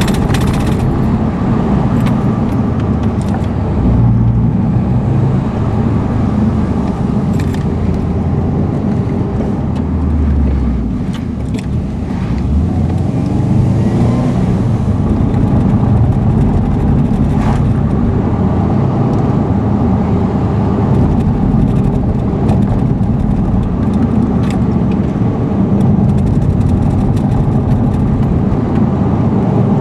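Subaru Impreza's flat-four engine and tyre noise heard from inside the cabin while driving, steady and loud. About ten seconds in the sound eases off briefly, then the engine note rises again; light clicks and rattles come now and then.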